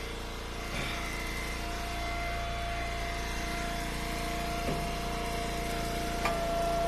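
Engine idling steadily: an even hum with a constant whine.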